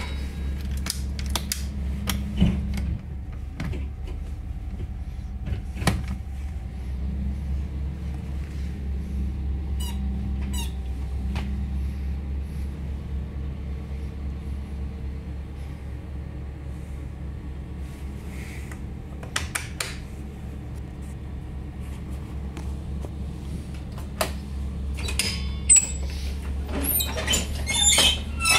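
School bus engine idling, heard from inside the bus as a steady low hum, with scattered clicks and rattles. Near the end there is a burst of clatter as the manual door lever is worked.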